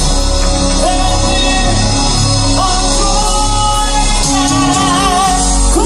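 Male southern gospel quartet singing live, with long held notes sung with vibrato, over instrumental accompaniment that includes a grand piano.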